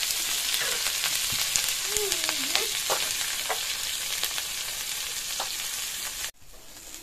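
Oil sizzling steadily as small stuffed pehta fruits fry in a black kadhai, with a metal spatula clicking and scraping as they are stirred and turned. The sizzle cuts off suddenly near the end.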